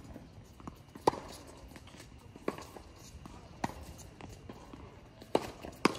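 Tennis rally on a hard court: the ball is struck by rackets and bounces, five sharp pops, one about a second in and two close together near the end.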